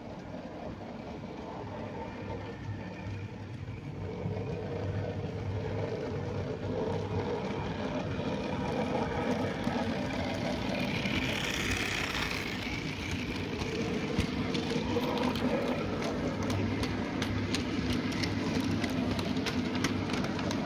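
OO gauge model tank locomotive and its goods wagons running along the track: a steady motor hum that grows louder as the train approaches, with a brief hiss near the middle and rapid clicking from the wagon wheels over the rail joints through the second half.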